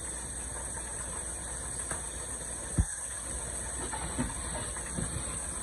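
A pan of okra, shrimp and sausage cooking on a gas burner: a steady hiss over a low hum, with a few faint ticks. A single short thump about three seconds in is the loudest sound.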